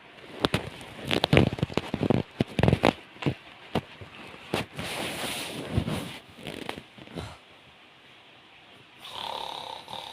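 A man snoring heavily in his sleep: irregular crackling, snorting snores in bursts, with a longer breathy snore near the end.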